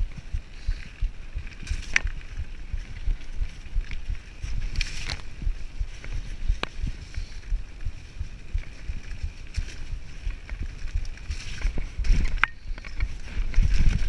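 Mountain bike riding fast down a dirt singletrack: a continuous jittery rumble from the tyres and frame shaking over the rough trail, with sharp rattles and clicks from the bike throughout. Heavier jolts come about twelve seconds in and again near the end.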